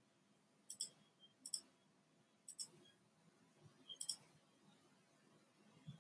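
Faint, sharp clicks, each a quick double tick, four of them spread over a few seconds, like a computer mouse or keys clicked near the microphone.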